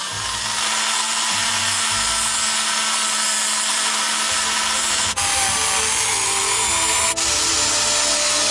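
Small high-speed rotary tool running steadily with a whine, scouring corrosion off the toy's switch contacts, with two very brief breaks partway through.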